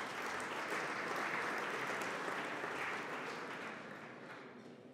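Audience applauding, strongest in the middle and fading away over the last second or two.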